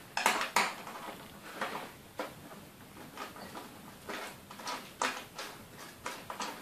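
Long screwdriver working the CPU heatsink's retaining screws inside a desktop PC: a string of short, uneven metallic clicks and scrapes, the loudest in the first second.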